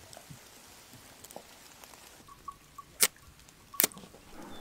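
A wooden match struck twice on the side of a matchbox, two sharp scratches a little under a second apart near the end, the second one catching into a short flare.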